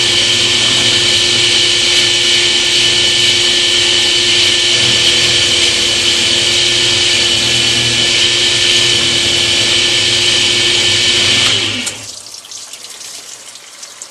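Power tool turning a 5/16-inch bit, running steadily as it bores through natural stone tile under water. It cuts off about twelve seconds in.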